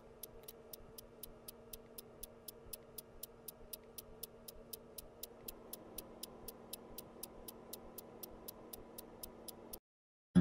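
Clock ticking steadily, about four ticks a second, over a faint hum; it cuts off suddenly near the end.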